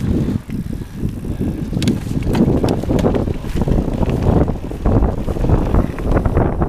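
Mountain bike rolling fast down a loose gravel trail: tyres crunching over the stones, with the bike rattling and knocking over bumps, and wind rumbling on the microphone.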